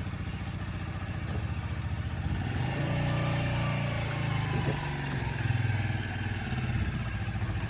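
Motorcycle engine running with a fast, even firing beat, the throttle opened a little about two and a half seconds in and again briefly later, then easing back.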